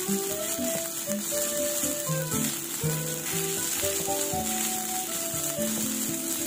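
Fried rice sizzling in a granite-coated frying pan as it is stirred and turned with a metal spatula, with background music playing over it.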